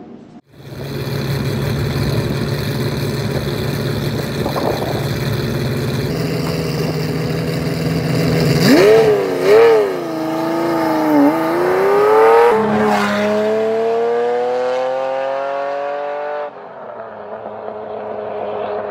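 Ferrari sports car engine running steadily, then revving with its pitch wavering up and down, then climbing steadily in pitch as it accelerates. Near the end it cuts off suddenly to a quieter, steadier engine sound.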